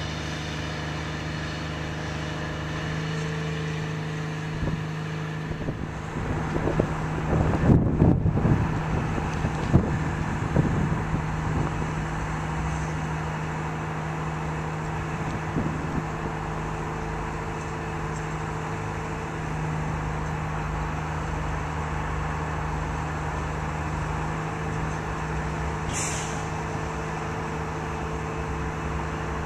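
Steady low hum of an idling engine, holding one pitch throughout. Louder irregular rumbles come about eight to ten seconds in.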